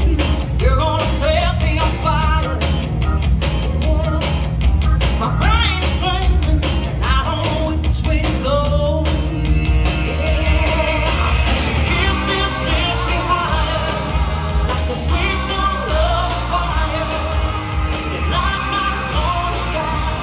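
Recorded song with a singer, played loud over a hall's loudspeakers as dance music.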